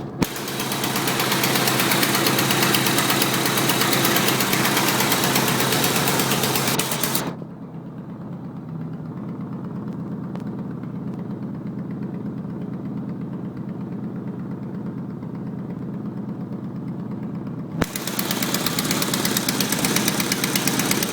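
Turbocharged Mitsubishi 4G63 engine idling with an exhaust leak at the downpipe, giving a fast, even, ticking puff with every exhaust pulse. About a third of the way through, the sound turns muffled and dull. Near the end, after a sharp click, the full bright ticking returns.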